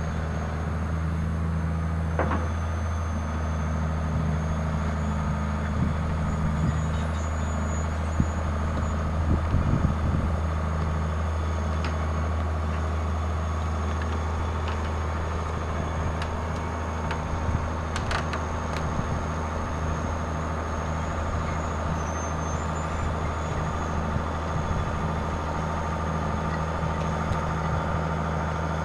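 John Deere 690B excavator's six-cylinder diesel engine running steadily, with a few short clicks and knocks, the loudest about eight to ten seconds in.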